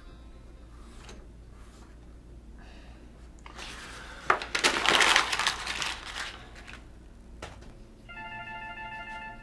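A loud, noisy crackling burst, sudden at its start, lasts about two seconds. Near the end a phone starts ringing: an electronic ringtone of several steady tones at once.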